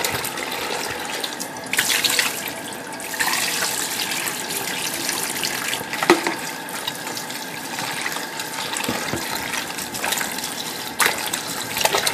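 Kitchen tap running into a plastic bowl in a stainless steel sink, with water splashing as gloved hands swish pork cutlets through it to rinse them. About six seconds in, the bowl's water is tipped out into the drain, with a sharp knock.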